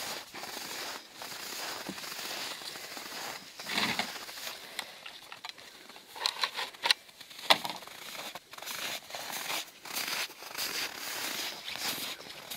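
Footsteps crunching in deep snow, in short repeated crackly steps. About halfway through, a few sharp clicks and knocks as a chainsaw that is not running is lifted and handled.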